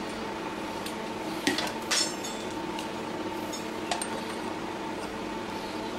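A few light metallic clicks and clinks as a handlebar lever and its cable are handled and fitted onto a steel handlebar, two close together about a second and a half in and one near four seconds. A steady faint hum runs underneath.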